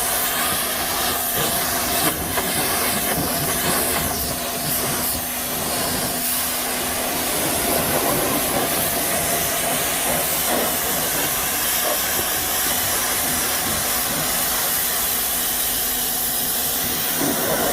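Steady hiss of a cleaning spray, with a faint steady hum under it, as the oily inside of the air-conditioner outdoor unit is washed down.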